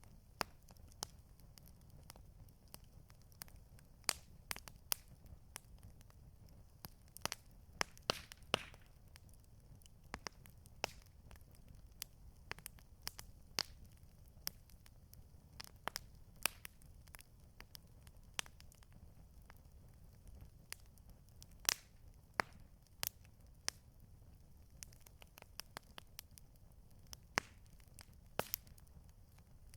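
Campfire crackling: irregular sharp pops and snaps, a few each second, over a low steady rumble.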